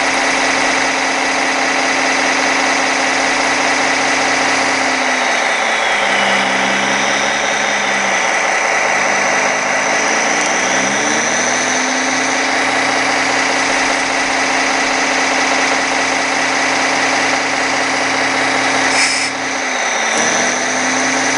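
Simulated diesel engine sound from a 1:16 RC excavator's Servonaut sound module, running steadily through the model's speaker. About five seconds in the engine note drops and works its way back up over several seconds, and near the end there is a click followed by another brief dip in pitch.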